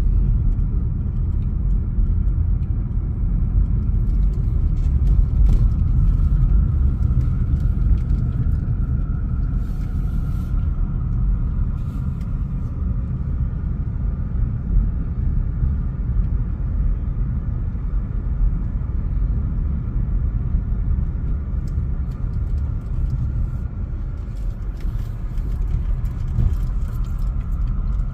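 A car driving, its engine and tyres making a steady low rumble.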